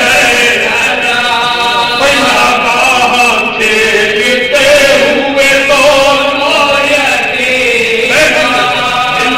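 Men's voices chanting a soz, a mournful Urdu elegy, together into microphones, with long drawn-out held notes.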